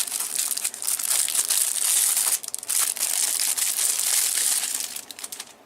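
Plastic wrapping crinkling and crackling loudly in the hands as it is pulled off a TV remote control, easing briefly about halfway through and dying away near the end.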